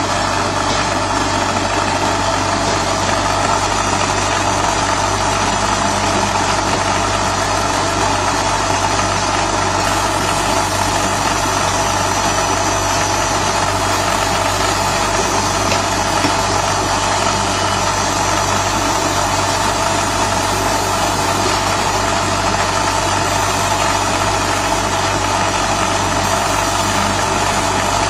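Steady, unchanging hum and whir of a 50 W CO2 RF laser marking machine running while it marks wood.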